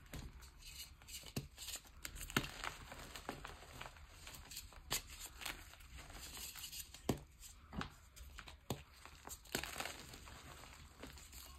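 Hands crumbling and squeezing pink gym chalk, powder and broken blocks, making soft powdery crunches and irregular sharp crackles as the chunks break apart.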